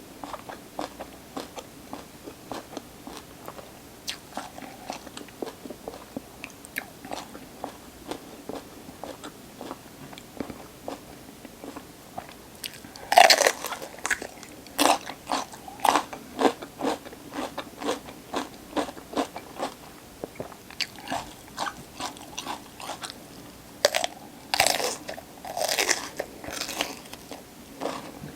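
Close-miked mouth sounds of someone chewing crisp raw vegetables, with quick wet crunches throughout. Loud crunchy bites come about halfway through and again near the end.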